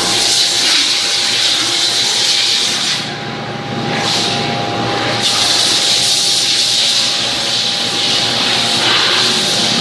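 CNC machining centre running in a machine shop: a loud, steady hiss with a faint steady whine under it, easing off briefly about three seconds in.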